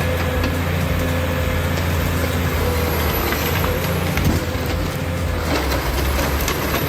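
A heavy machine's engine running steadily: a low drone with a steady whine above it.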